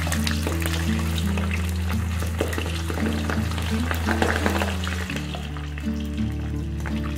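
Slices of rolled pork belly frying in hot oil in a frying pan, sizzling with many sharp crackling pops that thin out after about five seconds, over background music.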